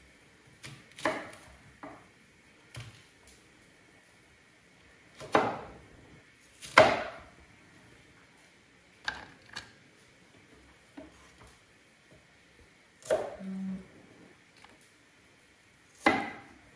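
Chef's knife cutting onions on a wooden cutting board: sharp, unevenly spaced knocks of the blade striking the board, about ten in all, a second or more apart, the loudest in the middle.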